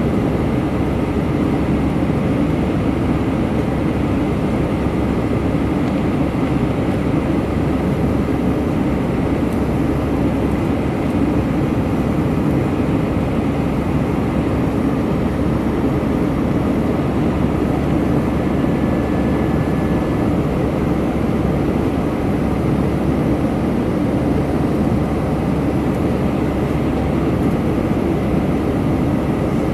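Steady cabin roar inside an Airbus A319-112 climbing after takeoff: its two CFM56 turbofan engines and the airflow over the fuselage, an even low noise with no breaks.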